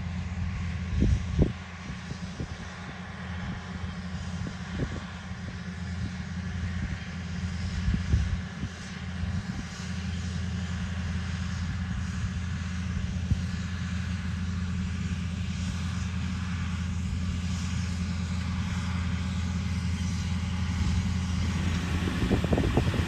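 New Holland T9.670 HD tractor's six-cylinder diesel running steadily under load while pulling a Bourgault air drill at seeding, with a few short low thumps about a second in and again near eight seconds.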